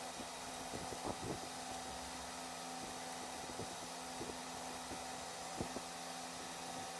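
Steady background hum with occasional light clicks and taps, typical of small tool parts being handled; the sharpest tap comes near the end.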